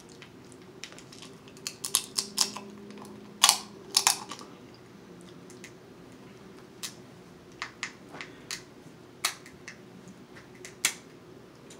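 Cooked snow crab shells cracking and snapping as they are broken apart by hand: a string of irregular sharp cracks, the loudest about three and a half and four seconds in, with single cracks scattered after.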